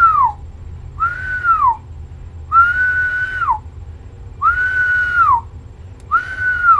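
A man whistling short notes into a CB radio microphone, five times, each held steady and then dropping in pitch at the end. The whistles modulate the transmitter so the watt meter shows the amplifier's peak swing power.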